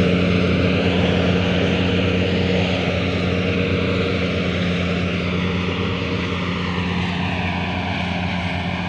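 New Holland combine harvester running steadily, a loud low engine-and-machinery drone that eases off slightly toward the end.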